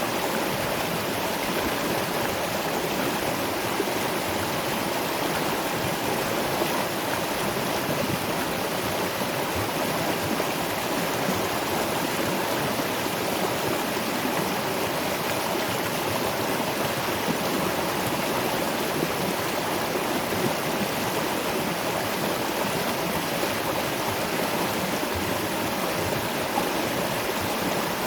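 Waterfall and river water rushing in a steady, unbroken flow.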